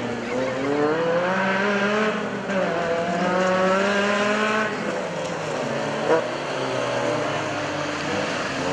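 Engine of an off-road racing vehicle revving hard, its note climbing twice in quick succession and then running on more evenly, with a single sharp knock about six seconds in.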